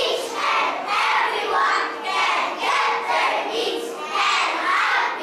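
A group of second-grade children reciting together in unison as a choral reading, their voices rising and falling in an even rhythm.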